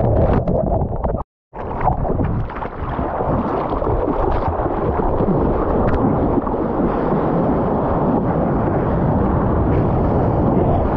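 Seawater rushing and splashing around an action camera held at water level on a surfboard in small breaking surf, with wind buffeting the microphone: a dense, low churning noise with scattered sharp ticks. The sound cuts out completely for a moment about a second in.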